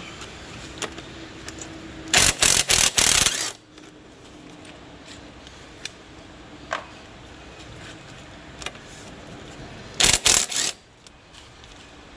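Cordless impact wrench hammering in two spells of short trigger pulses, about two seconds in and again near ten seconds in, on the bolts of a truck's front upper control arm and ball joint. Small tool clicks come between the spells.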